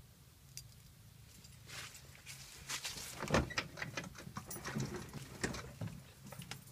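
Scattered clicks and knocks over a faint steady low hum. The loudest is a thump about three and a half seconds in.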